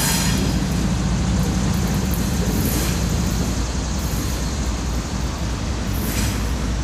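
Canadian National diesel locomotive running light along the track, its engine rumbling steadily with a low hum.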